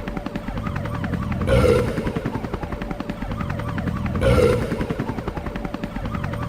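Burping sound repeated on a loop: a long, rattling burp drone with a louder burst twice, about every two and three-quarter seconds.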